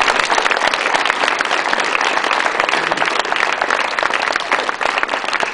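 Audience applauding: many hands clapping in a dense, steady stream that eases off slightly near the end.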